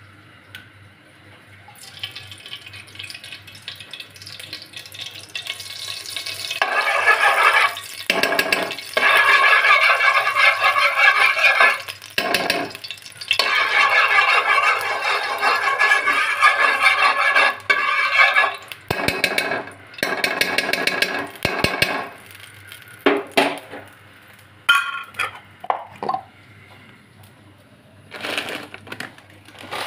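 Metal spoon scraping and stirring in an aluminium pot. Long scraping stretches in the middle, then separate clinks and knocks of metal.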